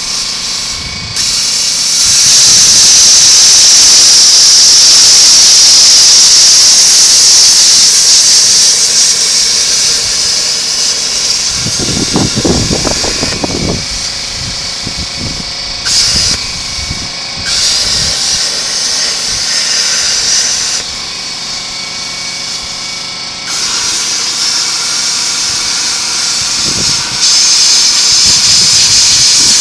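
DeWalt abrasive chop saw cutting through the steel shell of a scroll compressor: a loud, high grinding hiss that comes in about a second in, eases off and picks up again several times as the wheel bites, and is strong again near the end.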